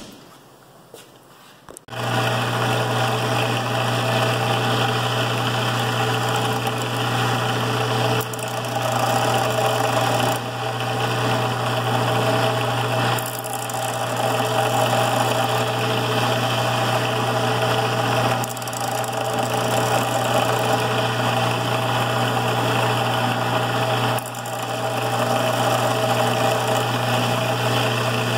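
Delta bench belt sander starting up about two seconds in and running steadily, grinding a steel connecting rod's big-end corners to take off weight for balancing. The grinding dips briefly several times.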